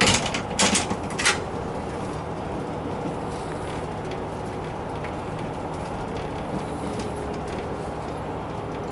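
Cabin noise of the Yufuin no Mori diesel train running slowly: a steady rumble with a low hum, and three sharp clacks in the first second and a half.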